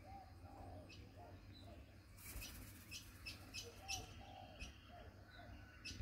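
Faint, soft bird calls: short low notes that rise and fall, given in pairs and small groups. A run of sharp clicks, about three a second, comes between about two and four and a half seconds in.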